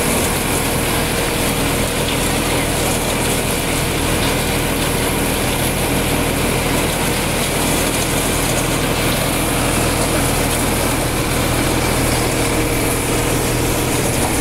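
Tractor-powered corn thresher running steadily while shelling ears of corn: the tractor engine and the thresher make one continuous mechanical noise.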